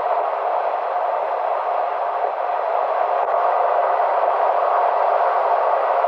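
Steady road and tyre noise heard from inside a car cruising on an expressway, an even hiss with no change in pitch.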